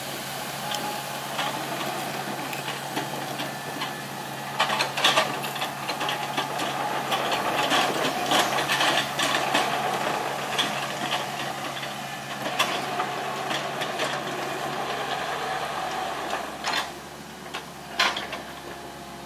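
A 2005 New Holland EH80 excavator's Isuzu four-cylinder diesel engine running steadily, with scattered knocks and clatter from the machine, busiest in the middle and with two sharp knocks near the end.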